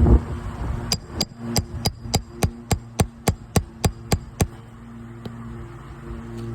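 Roofing hammer striking metal about a dozen times in a quick, even rhythm, roughly three to four blows a second, each with a short high ring, as the tool works on the shingle nails.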